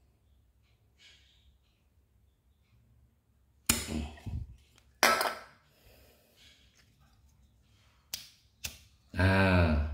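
Butane refill work on an S.T. Dupont Ligne lighter: two short, sudden bursts about a second apart as the refill can's nozzle is worked against the lighter's valve and pulled away, then two light clicks from the lighter.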